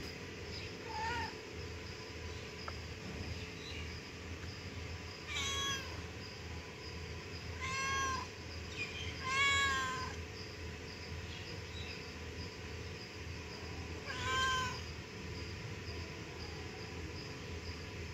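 Domestic cat meowing repeatedly, about five separate meows a few seconds apart, the loudest about halfway through, while it tries to reach a chicken leg floating in a tub of water; the owner takes the meows as the cat calling for help.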